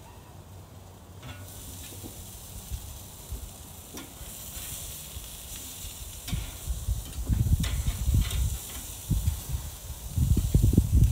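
Hamburger steak patties sizzling on a Char-Broil grill grate, a steady hiss with scattered pops that gets louder about a second in. In the second half, irregular low rumbles and thumps are the loudest sound.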